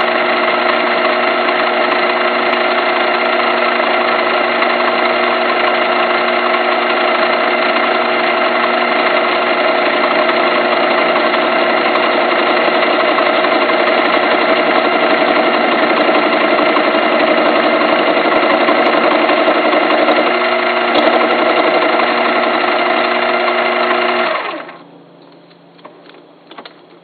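Small metal lathe running steadily as it turns a deer-antler blank, a whine of several steady tones. About 24 seconds in it is switched off and the sound falls away quickly, leaving a few light clicks.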